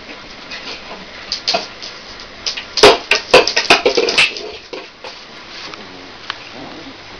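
Rustling close to the microphone, with a cluster of sharp clicks and scrapes about three to four seconds in, from handling and scuffling on a fabric sofa.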